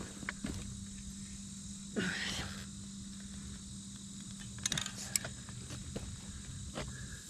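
Steady insect buzzing over a low, constant hum, with scattered clicks and handling noises and a short rustle about two seconds in.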